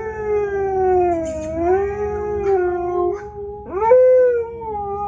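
Husky howling: one long howl that dips in pitch and levels off, then after a short break a second howl that rises, peaks loudest and slowly falls.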